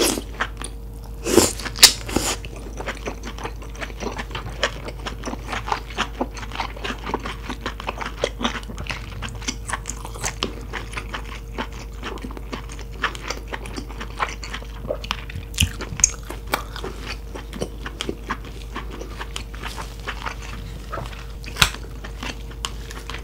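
Close-miked chewing of lobster meat: wet mouth smacks and small clicks in an irregular stream, with a few louder sharp clicks near the start, about two-thirds through and near the end.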